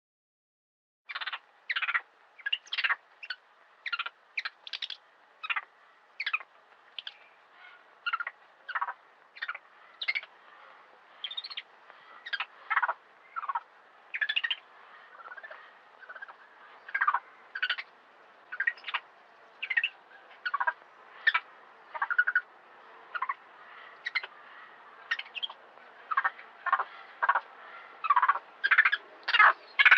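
Monkey call sound effect: a long run of short, high-pitched calls that fall in pitch, about one or two a second over a faint hiss. It starts about a second in and the calls come thicker near the end.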